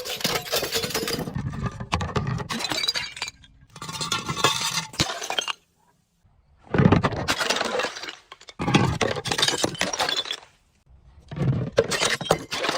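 Glass being crushed and broken, crunching and crackling in about six bursts with short pauses between them.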